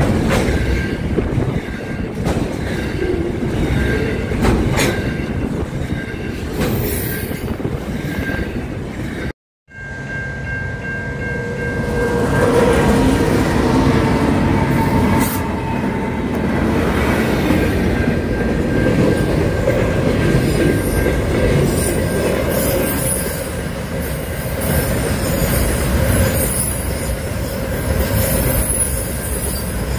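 Freight trains passing close by: a double-stacked container train rolls past with a steady wheel squeal over its running noise. About nine seconds in the sound cuts out briefly, then another freight train runs past, also with a thin, steady squeal.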